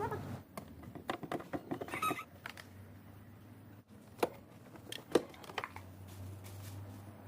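Irregular clicks and taps of small parts and tools being handled while an electric fan is worked on, with two sharper clicks near the middle. A low hum comes and goes underneath.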